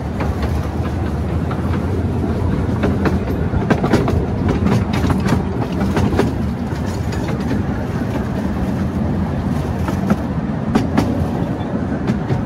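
12-inch-gauge miniature railway train running along its track, heard from aboard a carriage: a steady low rumble of wheels on rail, broken by irregular clicks of the wheels over rail joints.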